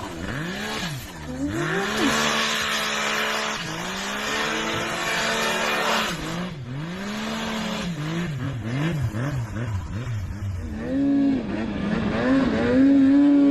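Snowmobile engines revving hard, the pitch rising and falling again and again as the throttle is worked, getting louder near the end.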